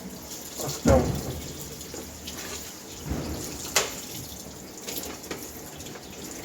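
Tap water running into a sink as a dishwasher filter is rinsed clean, with a few light clicks and one sharp knock of the parts nearly four seconds in.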